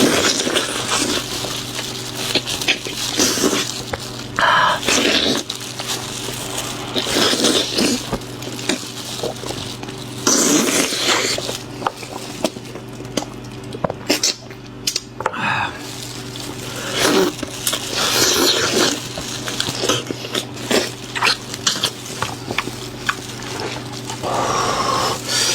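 Close-miked wet chewing and slurping of meat, in bursts every few seconds, over a steady low hum.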